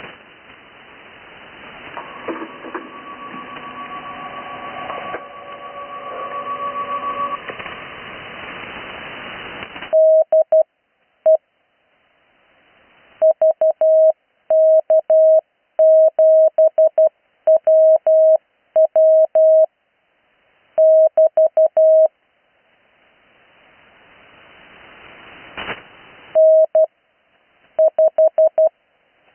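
Morse code (CW) received on an 80 m shortwave receiver: about ten seconds of band hiss with a few faint steady carrier tones, growing louder, then a single steady tone keyed on and off in dots and dashes, the slow Morse practice transmission. Near the end the keying pauses, the hiss rises again with a click, and the keying resumes.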